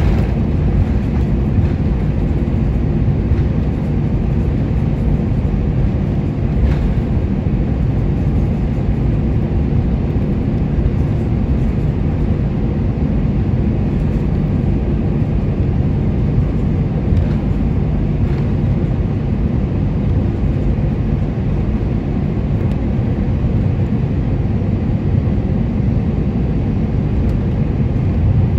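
Airbus A320-200 cabin noise while taxiing, heard from a seat over the wing: the jet engines at idle and the airliner rolling, a steady low rumble with no change in level.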